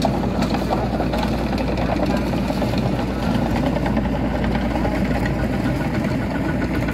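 Small crawler bulldozer's diesel engine running steadily.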